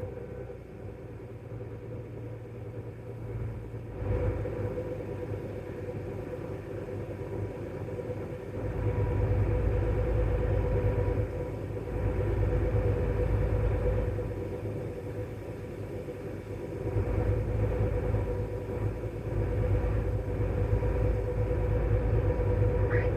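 Combine harvester running while cutting soybeans: a steady whine over a low rumble that swells louder several times.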